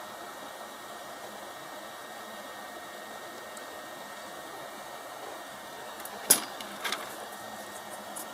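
Steady airy hiss of a small fan or hot-air blower on the repair bench. About six seconds in comes one sharp click, followed by a few lighter clicks of tools or parts being handled.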